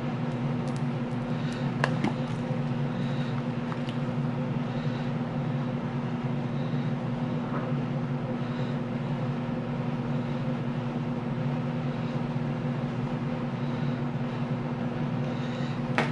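Steady low mechanical hum from an unseen motor or appliance, with a few faint clicks of a cured resin dish and a silicone mold being handled, about two seconds in and again near the end.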